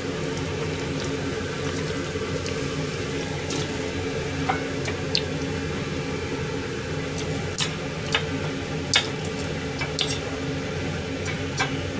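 Hot oil bubbling in a deep-frying pot, with a few sharp pops scattered through, over a steady low hum.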